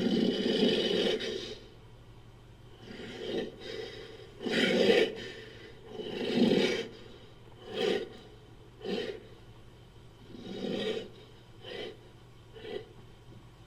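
Ogre creature sound effect: a string of about nine raspy, breathy growls and grunts. The first growl is long and the later ones come as short huffs that get briefer toward the end.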